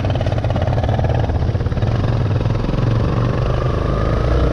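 Motorcycle engine running steadily under the rider as the bike moves along a street, its pitch rising near the end as it speeds up.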